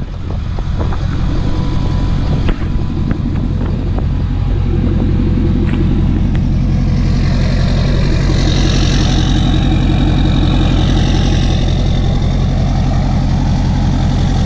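Ford F-250 Super Duty diesel pickup engine idling steadily with an even low rumble. The sound fades in at the start, and a higher hiss comes in through the middle.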